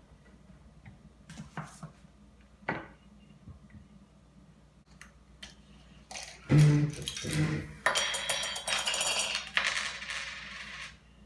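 Small hard objects being handled on a table: a few single clicks, two loud thumps about six and a half seconds in, then about three seconds of rapid clinking and rattling.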